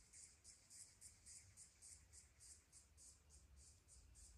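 Faint insect chirping in a steady, quick rhythm of about six high pulses a second.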